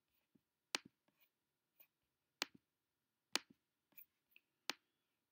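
A quiet room broken by scattered sharp computer clicks, four louder ones roughly a second apart with fainter ones between them.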